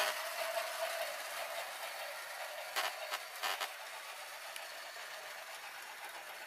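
Battery-powered toy high-speed train's small electric motor running as it rolls along plastic track, a steady high hiss that slowly fades. There are two short clicks about three seconds in.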